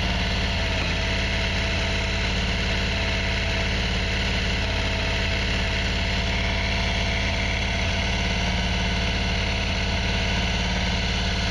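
Motorcycle engine idling steadily during a carburetor sync, heard close to the intakes, with an airflow synchrometer held over one carburetor's intake.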